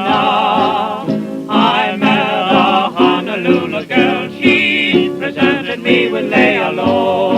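Hawaiian string-band music from a 1930 78 rpm record: a high melody with heavy vibrato over steady rhythmic accompaniment.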